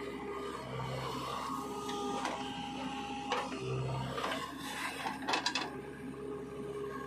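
JCB 3DX backhoe loader running steadily as it digs and dumps soil, with a short rattle of clanks about five seconds in.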